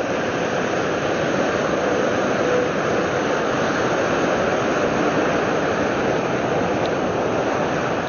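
Surf washing up a sandy beach: a steady rushing noise of waves that swells a little in the middle.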